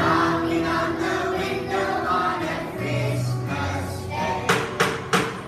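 Children's choir singing to an acoustic guitar accompaniment. Near the end come three sharp taps or claps, close together.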